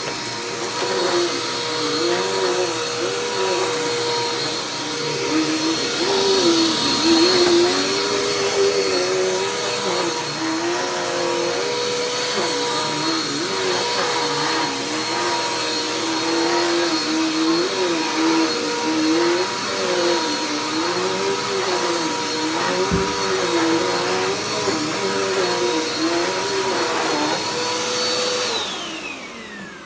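Dirt Devil Endura Express upright vacuum cleaner running with a steady whine, one tone in it rising and falling every second or two as it is worked. About a second and a half before the end it is switched off and the motor winds down.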